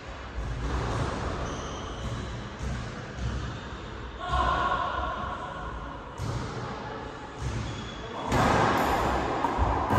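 A racquetball bouncing on a hardwood court floor several times, as a player readies to serve.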